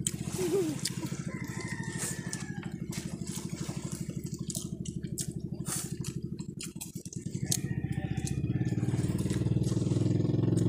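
Small engine running steadily with a fast, even pulse; it dips briefly about two-thirds of the way through, then grows louder.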